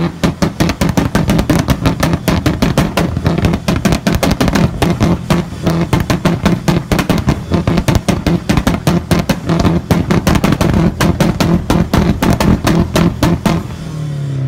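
Car engine held at high revs while its exhaust fires a rapid, steady string of loud pops and bangs, several a second, as when an engine is bounced off a rev limiter. The revs drop back near the end.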